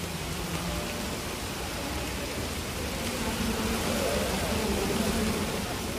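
Steady hiss of heavy rain pouring onto a flooded street, mixed with the rush of floodwater.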